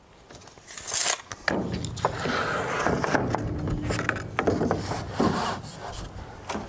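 A long board sliding and scraping across a sliding miter saw's table and fence as it is set in place, with knocks as it is handled and a loud knock about a second in.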